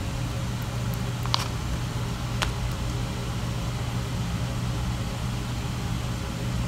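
Steady low hum of room background noise, with two faint clicks about a second and two seconds in.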